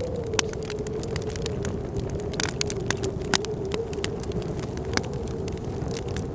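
Wood fire crackling with frequent sharp pops, over the steady low howl of blizzard wind that holds one whistling note.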